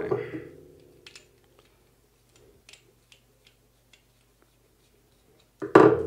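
Faint scattered clicks and ticks of a plastic push-button station and its wire being handled. Near the end comes one loud sharp knock that rings on briefly as it fades.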